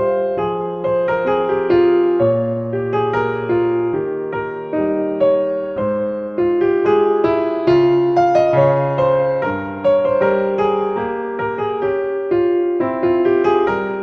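Background piano music: a gentle, steady stream of notes, each struck and fading.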